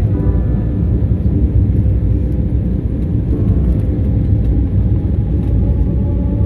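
Steady low rumble of a jet airliner in flight, heard from inside the cabin: engine and airflow noise.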